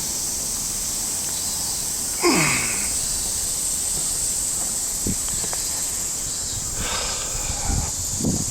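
Steady high-pitched drone of cicadas in summer, with a few brief nearby sounds over it, the loudest a short falling sound about two seconds in.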